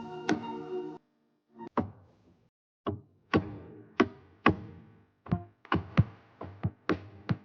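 Music with sustained chords that cut off about a second in, followed by a run of sharp, unevenly spaced percussive hits with short decays, roughly two a second.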